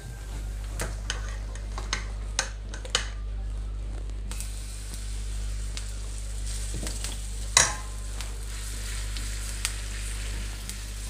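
Grated courgette and egg batter frying in hot oil in a nonstick frying pan: a few light clicks, then a steady sizzle that fills in about four seconds in as the batter goes into the pan and is spread with a wooden spatula. One sharp knock of a utensil on the pan comes a bit past halfway, over a steady low hum.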